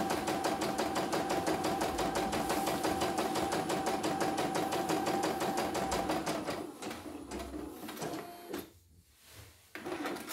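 Computerized home embroidery machine stitching a design with a fast, even mechanical rhythm. The rhythm stops about two-thirds of the way through as the design finishes, followed by a few light clicks.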